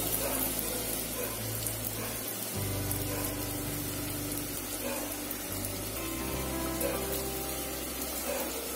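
A gas burner hisses steadily under an aluminium pressure cooker while a little oil sizzles gently as litti dough balls are set into it one by one. Faint background music with held low notes runs underneath.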